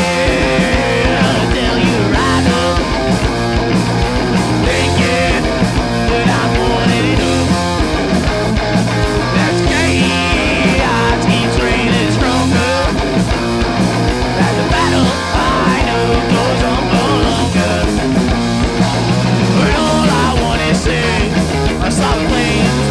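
A punk rock band playing live at full volume: electric guitar over bass and a steady drum beat.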